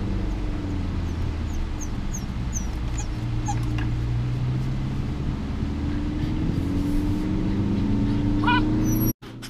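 German Shepherd puppy whimpering in short high-pitched squeaks, about two a second for the first few seconds and again near the end, over the steady low rumble of a moving car.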